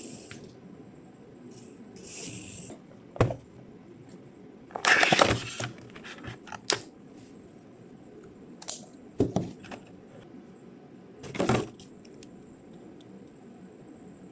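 RC toy car and its packaging being handled during unboxing: scattered clicks and knocks, the loudest a scraping, rustling stretch about five seconds in.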